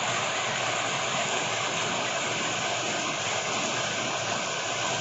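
Steady rain falling on corrugated metal roofs and leafy trees.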